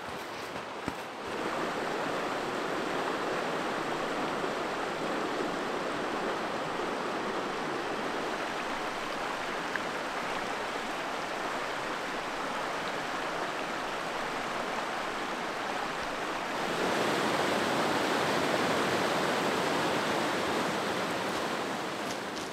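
Open river water rushing over rocks in a rapid: a steady hiss, louder from about seventeen seconds in.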